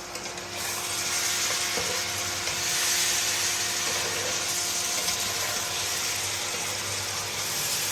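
Mutton curry sizzling in a frying pan as a steady hiss, the liquid cooked off so that the meat has begun to stick to the pan.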